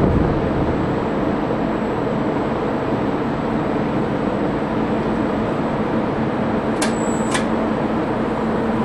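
Steady mechanical rumble and noise, with a low hum growing stronger about six seconds in and two sharp clicks about half a second apart near seven seconds.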